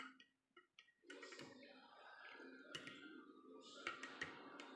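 A metal teaspoon stirring milk in a glass tumbler, clinking against the glass now and then: several quiet, irregular clinks.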